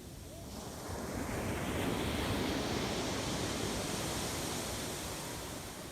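Surf on a sandy beach: a wave breaks and washes up the shore, swelling from about half a second in and then slowly fading as it runs out.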